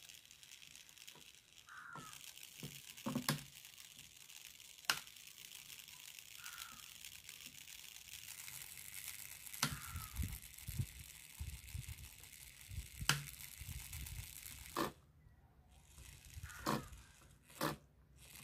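Small brushed DC motor spinning up under the transmitter's throttle stick, a thin high whirring hiss that starts about two seconds in and cuts off about fifteen seconds in, with several sharp clicks of handling along the way.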